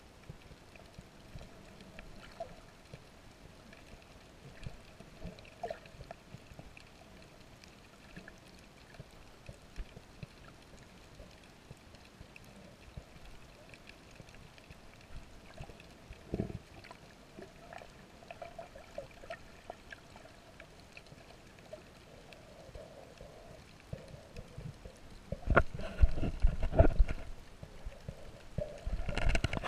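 Underwater sound through a GoPro's waterproof housing: scattered faint clicks and crackle over a low hum, with a single knock about halfway through. Near the end, louder bursts of rushing, bubbling water.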